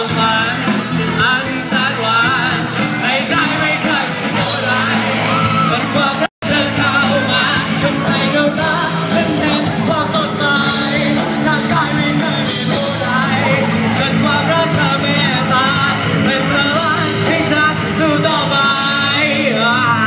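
A live rock band plays a song on a sound system, with a lead vocalist singing over guitars, and the crowd shouting and yelling along. The sound cuts out for an instant about six seconds in.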